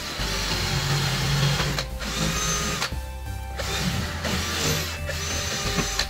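AEG cordless drill/driver running against a metal door frame in several runs of one to two seconds, with short stops between them. Background music plays underneath.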